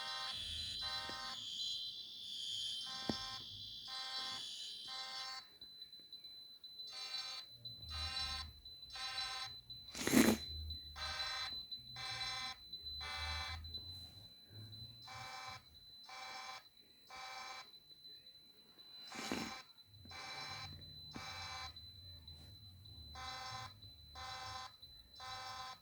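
Several fire alarm horns sounding together in a pulsing pattern, about one blast a second, over a steady high-pitched tone. A harsher high-pitched sound drops out about five seconds in. Two sharp clicks come about ten and nineteen seconds in.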